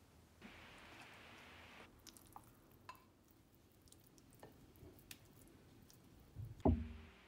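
Wooden spatula scraping and spreading thick, wet vegetable purée in a glass baking dish: soft squishing with small clicks and taps, then a louder knock near the end.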